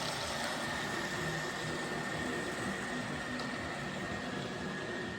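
Model trains running around a shop layout: a steady hum and rumble with a faint, constant high whine.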